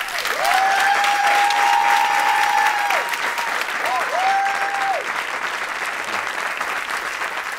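Audience applauding, with a long held high cheer starting about half a second in and two shorter ones around four seconds in.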